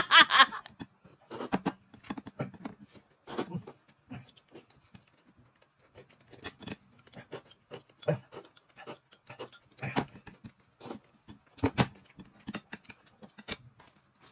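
Eating sounds of two people: irregular slurps, chews and lip smacks, with light clinks of chopsticks and a spoon against plates and glasses.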